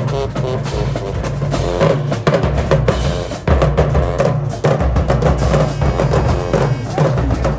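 High school marching band playing, its drumline pounding a steady beat on bass and snare drums under the horns.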